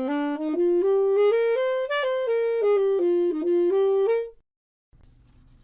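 Solo saxophone playing a short melody of single held notes that step up and down, stopping a little over four seconds in.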